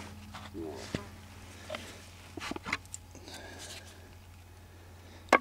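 Wooden back of a handmade oak chair being lifted out of its sockets in the seat: a few faint wooden clicks and scrapes, then one sharp knock near the end, over a steady low hum.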